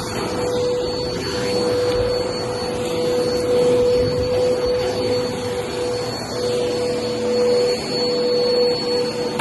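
Vacuum cleaner running on carpet, its motor holding a steady hum with a high whine over the rush of airflow, swelling and easing a little as it is pushed back and forth.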